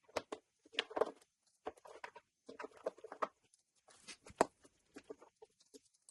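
Irregular rustling and light clicking of a wiring harness and its plastic connectors being handled, with one sharper click about four seconds in.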